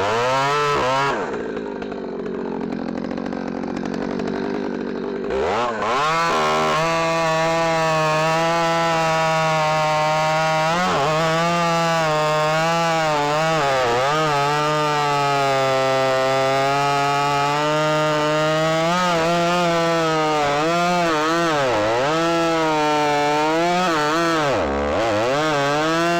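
Ported Stihl MS310 two-stroke chainsaw with an open Ironhorse-style muffler running at high revs through cuts in cherry slabwood, its pitch dipping briefly again and again as the chain bites. The note goes quieter and less clear for a few seconds early on.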